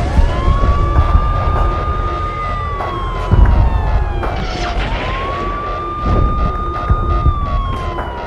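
An emergency-vehicle siren on its wail cycle: it rises quickly, holds high for a couple of seconds, then slides slowly down, twice. Deep low thuds break in about three and six seconds in.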